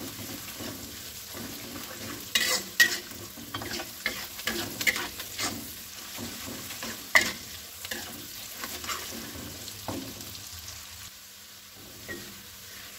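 Chopped shallots and garlic sizzling in hot oil in a wok while a metal spatula stirs them, with irregular scrapes and clinks of the spatula against the pan. The aromatics are being fried until fragrant and lightly browned.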